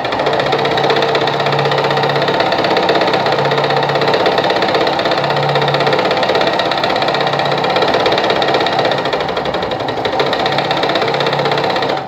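Sartina e-100 sewing machine running steadily at speed as it sews a built-in decorative stitch pattern, stopping suddenly at the end.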